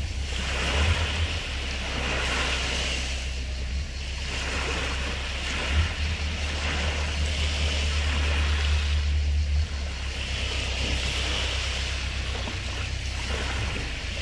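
Sea waves washing onto a beach, the hiss swelling and fading every few seconds, with wind rumbling on the microphone underneath.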